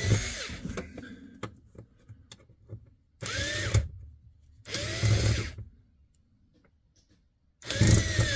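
Cordless drill/driver driving screws down through a rubber floor mat, run in four short bursts. The motor whine rises in pitch as each run starts and drops as it stops, and the last run is the longest.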